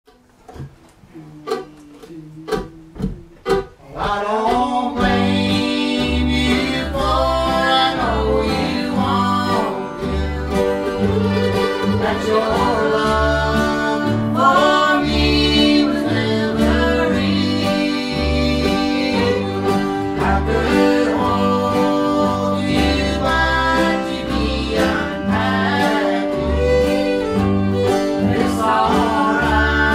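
Live acoustic bluegrass string band of mandolin, upright bass, guitar and fiddle playing a song with voices singing. A few separate sharp notes open it, and the full band comes in about four seconds in.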